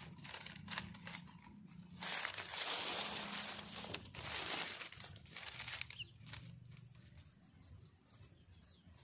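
Rustling and crinkling handling noise in uneven bursts, loudest from about two to five seconds in, then fading.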